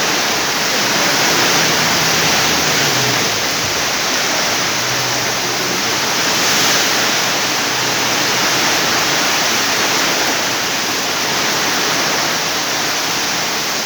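Heavy rain driven by strong wind: a loud, steady rushing with no let-up.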